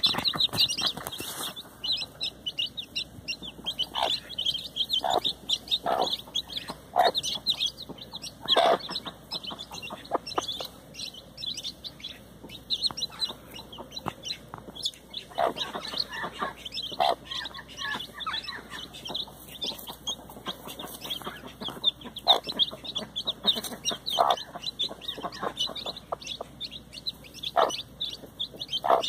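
A brood of chicks peeping continuously and high-pitched, with their mother hen giving short clucks now and then.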